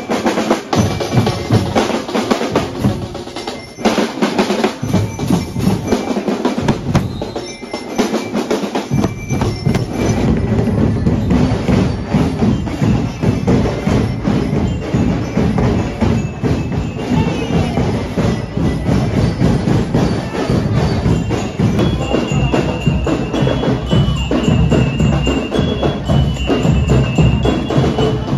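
Marching band percussion: snare drums, bass drums and cymbals playing a steady parade beat. From about nine seconds in the low beat grows fuller, and near the end a high melody of single notes joins the drums.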